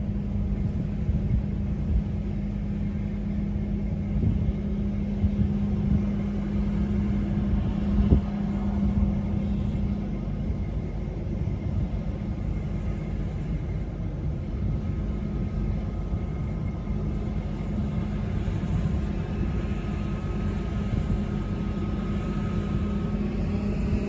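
A John Deere combine harvester running steadily as it harvests wheat: a constant low machine rumble, with a faint high whine coming in about halfway through.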